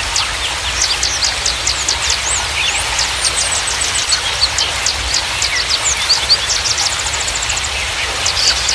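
Small songbirds chirping in many quick, sharp, high notes over a steady rush of flowing water, with a fast run of even notes a little before the end.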